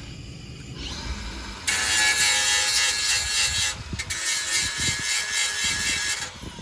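Power grinder spinning up with a rising whine, then grinding on the combine's steel frame in two long passes with a short break between, working at the stress cracks that are being repaired.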